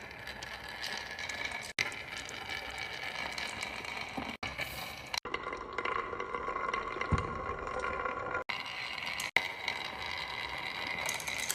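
Marbles rolling and clattering down the wooden ramps of a HABA slope marble run, a continuous patter of small clicks and knocks, broken by several abrupt cuts in the sound.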